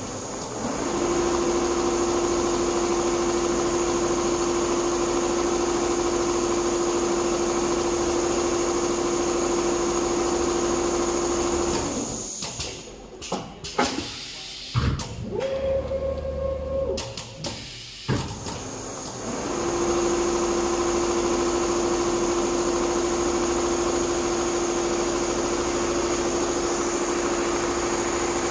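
Richpeace multi-head computerized leather sewing machine stitching, its heads giving a steady pitched hum. About twelve seconds in the stitching stops, leaving a stretch of clicks and a brief higher hum. About seven seconds later it starts stitching again with the same steady hum.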